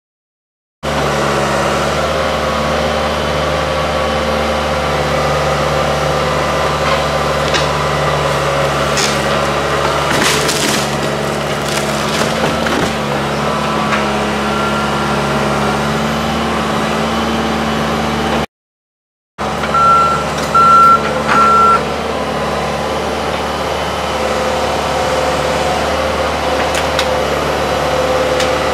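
John Deere 110 excavator's diesel engine running steadily as it works against the cottage's wood frame, with a few sharp knocks and cracks. About two-thirds through, three short, even beeps sound from a backup alarm.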